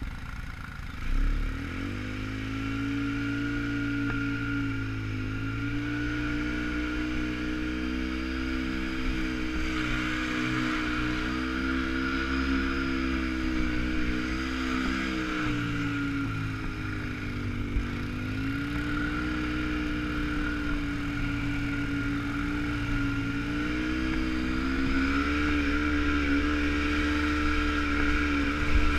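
Quad bike engine running under way. Its pitch rises as it pulls away about a second in, then stays fairly steady, sagging and picking up again a few times as the throttle changes. A short knock comes just as it pulls off.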